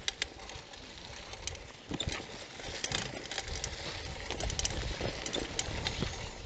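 Bicycle rolling over a rough dirt road: tyre noise with irregular clicks and rattles.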